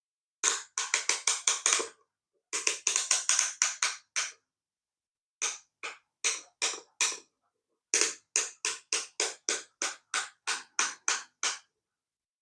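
Runs of sharp clicks from putting the multimeter's case back together and driving its screws in. About seven clicks a second in the first two runs, then sparser groups with short pauses between.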